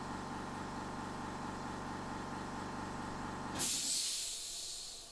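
Steady electrical machine hum from bench equipment that cuts off suddenly about three and a half seconds in. A high hiss of air takes over and fades away.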